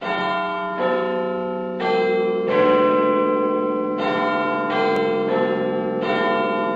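Bell chimes ringing a slow tune, a new note about every second, each note ringing on into the next.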